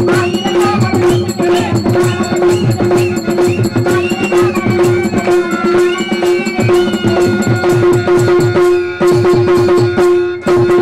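Live Tamil stage-drama band music: hand drums beating a fast, steady rhythm under a gliding melody line and a constant drone note.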